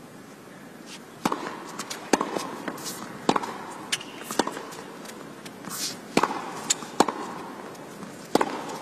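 Tennis ball struck by rackets in a serve and a baseline rally: sharp pops about once a second, with fainter clicks between them.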